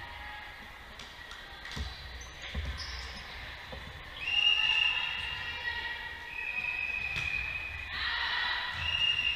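Volleyball rally on an indoor hardwood court: a few sharp hits of the ball echo in the hall, and over them come long, steady high-pitched tones. A short burst of noise follows near the end.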